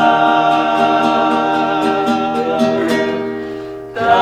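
Group of voices singing a hymn in Tongan, holding a long note that slowly fades, then starting a new line near the end.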